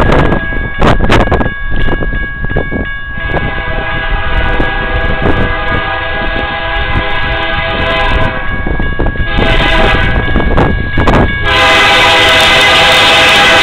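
BNSF diesel locomotive's air horn sounding a long, steady chord as the intermodal train approaches, becoming much louder and fuller about two seconds before the end. Wind gusts buffet the microphone in the first half.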